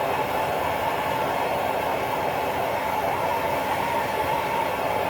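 Gas torch burning with a steady hissing roar, heating a stuck cylinder-head bolt to free it.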